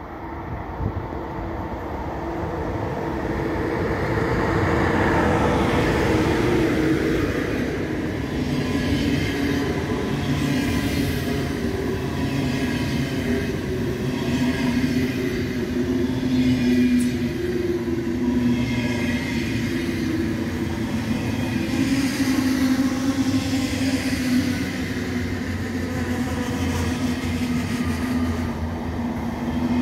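ICE 1 high-speed train passing through the station without stopping. The sound swells over the first few seconds as the power car arrives, then holds as a steady rumble and hum while the coaches roll by, with a clack from the wheels about every second.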